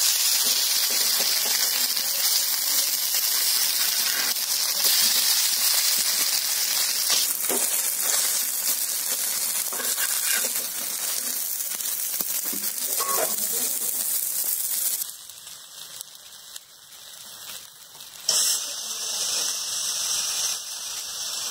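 Pumpkin flowers in rice batter sizzling as they shallow-fry in oil in a pan, with a few faint scrapes of a spatula turning them. The sizzle drops away suddenly about fifteen seconds in and comes back about three seconds later.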